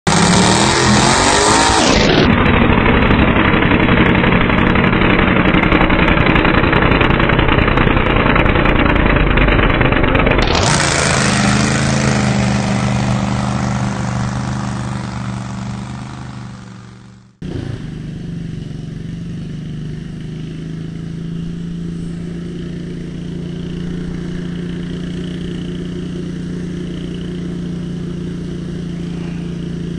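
Garden tractor engines running hard under load while pulling. One engine is loud, its pitch rising and falling, then fades away. After an abrupt cut a steadier, quieter engine drone comes in.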